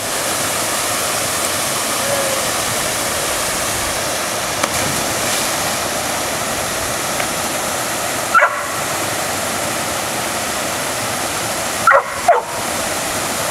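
Steady rush of a small rock cascade pouring into a natural swimming pool. Short high yelps cut through it about eight seconds in and twice more near the end.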